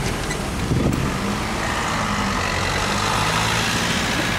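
Road traffic: car engines idling and moving off in a queue at a level crossing as the barriers lift, a steady low engine hum.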